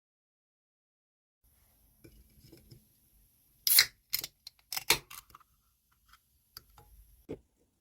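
Small plastic and cardboard pieces handled while unboxing earbuds: a scatter of sharp clicks and taps, loudest about four and five seconds in, with light rustling.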